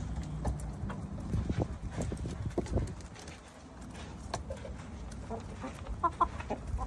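Chickens pecking at a pumpkin: irregular sharp taps of beaks striking the pumpkin, with a few short high chirps near the end.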